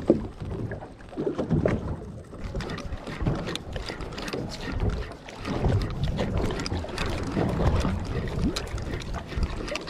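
Sounds aboard a small fishing boat at sea: wind buffeting the microphone and water moving against the hull. Scattered light knocks and clicks run throughout.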